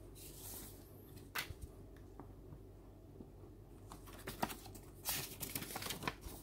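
Paper booklet being handled and flipped open: a single crisp rustle about a second and a half in, then a cluster of quick paper flicks and rustles from about four seconds in.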